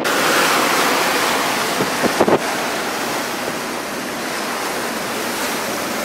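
Wind and rough sea rushing past a ship under way in heavy seas, with the wind buffeting the microphone. About two seconds in there is a brief louder surge.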